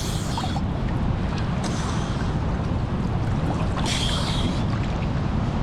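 Sea water splashing and sloshing in a tidal sea pool, in short bursts about every two seconds, over a steady low rumble.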